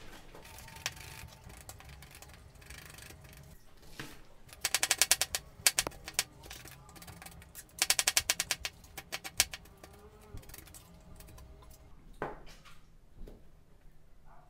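Kitchen knife chopping garlic and red onion on a plastic cutting board: two quick runs of rapid strokes, each about a second long, with scattered single cuts between and after.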